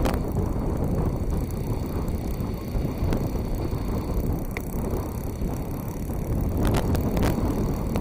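Wind buffeting the microphone: a loud, wavering low rumble, with a few brief clicks, two of them near the end.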